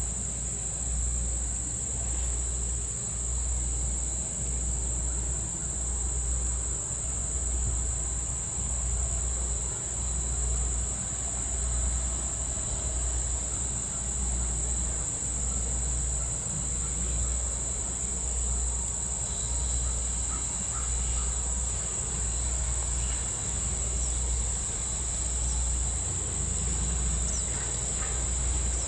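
Insects droning steadily in one high, unbroken note, over a low throb that pulses about once a second.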